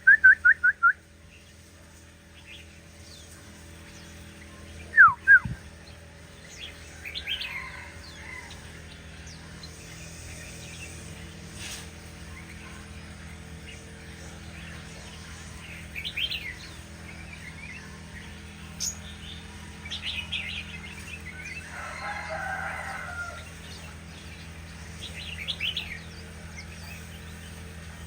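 Shama singing: loud rising whistles and a quick run of notes at the start, two loud sweeping whistles about five seconds in, then scattered softer chirps and short phrases, over a steady low hum.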